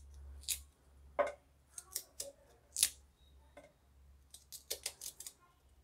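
Kitchen knife cutting the seedy core out of a firm guava held in the hand: about a dozen short, crisp cutting clicks at an irregular pace, with a quick run of them near the end.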